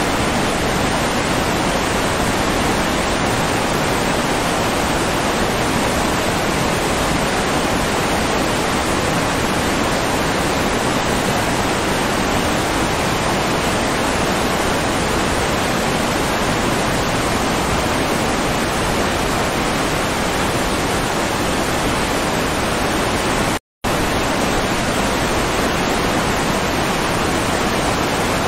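Steady rushing-water noise, like a waterfall, running unchanged as a background track; it cuts out for a split second about 24 seconds in.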